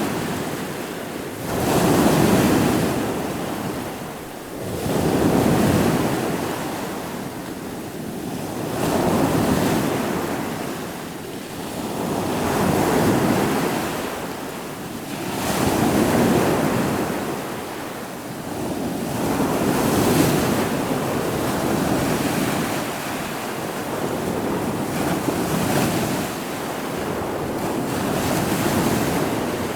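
Ocean waves breaking and washing on the shore, surging and ebbing about every four seconds, with some wind.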